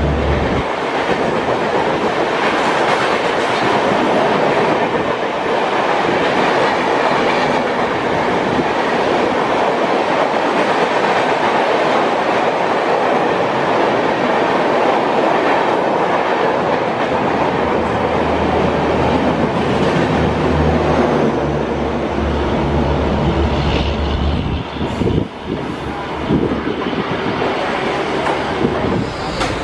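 Passenger train running past at speed: a steady loud rush of steel wheels on the rails with carriages rolling by, and a low hum joining in for several seconds past the middle before a short drop near the end.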